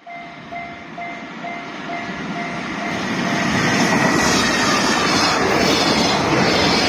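Level-crossing warning bell ringing in an even pulse about twice a second while a freight train comes through the crossing. The train's rail noise swells and drowns out the bell after about three seconds.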